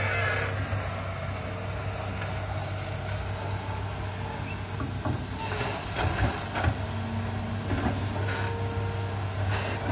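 Hydraulic excavator's diesel engine running steadily under digging load, with a faint hydraulic whine and several short clunks from the bucket working the soil in the second half.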